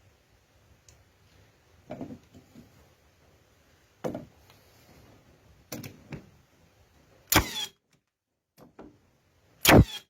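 Milwaukee 18 V 16-gauge cordless finish nailer being handled and reassembled with light clicks and knocks, then fired twice, two loud sharp shots a little over two seconds apart. It is driving nails properly again after a misfire was cleared.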